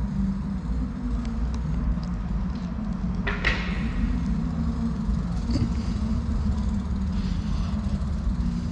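Steady low rumble of a dirt jump bike rolling along the track, picked up on the rider's action camera. A brief sharp noise comes about three and a half seconds in.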